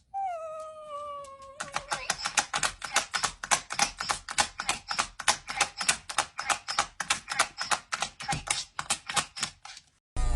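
A cat gives one meow that falls in pitch. It is followed by rapid, even clicking, about five or six clicks a second, that cuts off near the end.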